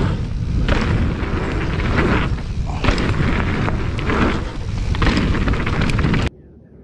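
Wind buffeting the microphone of a mountain biker's camera while riding a dirt jump line, with the rumble of the bike on the trail; a loud rushing that swells and fades about once a second, then cuts off suddenly near the end.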